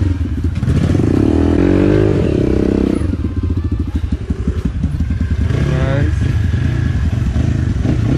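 Motorcycle engines running, one revving up with its note climbing between about one and three seconds in, over a steady low rumble.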